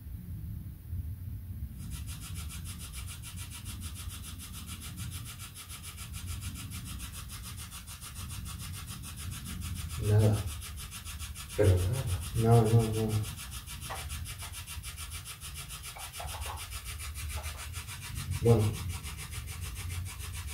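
Spirit box sweeping through radio frequencies: a steady, rapidly chopped static hiss that starts about two seconds in, with a few brief voice-like fragments in the middle and near the end.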